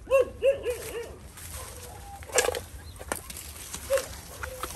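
Four short animal calls in quick succession, followed a little later by a couple of sharp knocks and one more call near the end.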